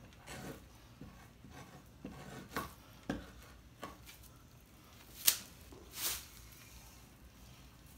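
Fleshing knife scraping fat and membrane off a raccoon pelt on a wooden fleshing beam. It comes in a series of separate short strokes, the sharpest and loudest a little after five seconds in.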